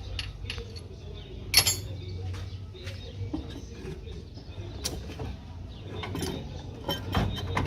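Scattered metallic clicks and knocks of tools and parts being handled during engine work, the loudest about one and a half seconds in, over a steady low hum.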